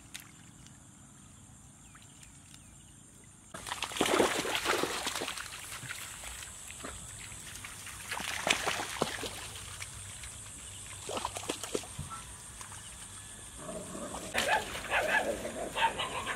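A pack of dogs barking in a chase, starting suddenly a few seconds in after a quiet stretch, with rapid, choppy barking near the end.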